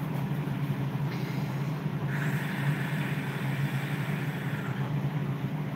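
Steady low machine hum, with a hiss joining it for about three seconds in the middle.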